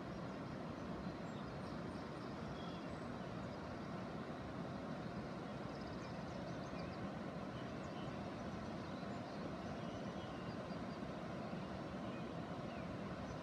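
Steady rushing outdoor noise with no changes, and a few faint high bird chirps above it.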